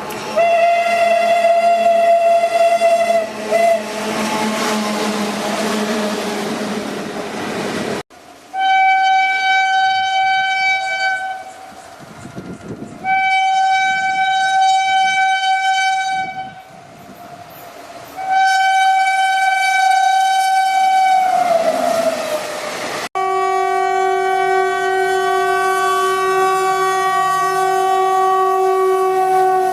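Indian Railways locomotive horns in three clips cut together. First comes one long blast over the rumble of a passing train. Then three long blasts, the last one dropping in pitch as it dies away. Last is a steady two-tone horn blast.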